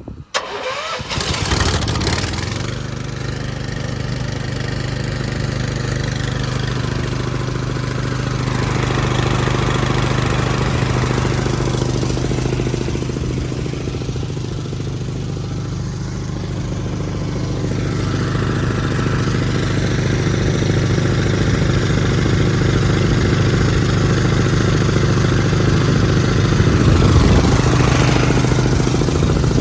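Gasoline engine of a truck-mounted Honda air compressor catching about half a second in, then running steadily while the compressor pumps air.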